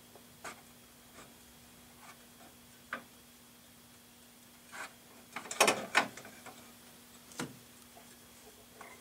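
Fluorescent-lamp starter being handled and twisted into its socket: scattered light clicks, with a cluster of louder clicks about five and a half seconds in, over a faint steady hum.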